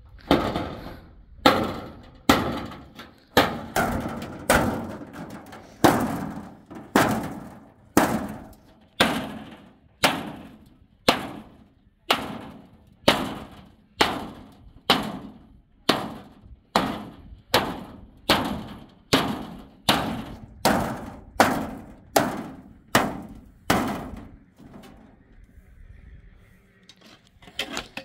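Hammer blows on a corrugated metal roofing sheet lying on the ground, flattening the bent sheet. The blows come steadily at about one a second, each with a short metallic ring, and stop a few seconds before the end.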